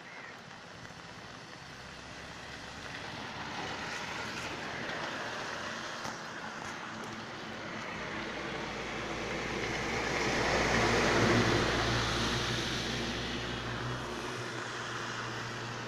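A motor vehicle passes close by: its engine hum and road noise build to a peak about eleven seconds in, then fade.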